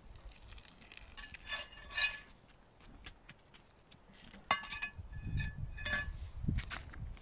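A metal spatula scraping and clinking against a frypan, a few ringing clinks about a second or two in, then another cluster in the second half as the spatula is laid down on the pan.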